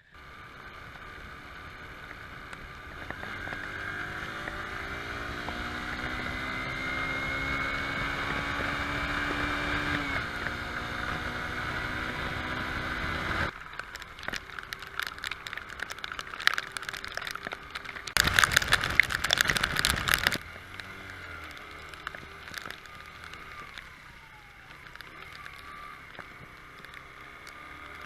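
Aprilia RS 125's 125cc single-cylinder two-stroke engine running on its freshly rebuilt top end while being heat-cycled. Its pitch creeps slowly upward, then it stops suddenly about halfway through. A couple of seconds of loud noise follow later.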